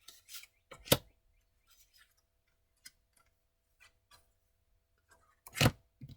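Tarot cards handled on a table: two sharp taps, one about a second in and another near the end, with light clicks and rustles between.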